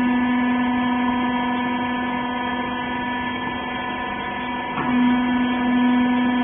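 Steady electric hum of a wiper-rag baler machine's motor. About five seconds in, the pitch briefly dips with a small knock, and the hum then goes on a little louder.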